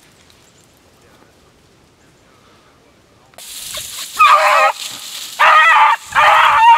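Hounds baying while running a rabbit: a nearly quiet first half, then three loud drawn-out bawls about a second apart over a steady hiss.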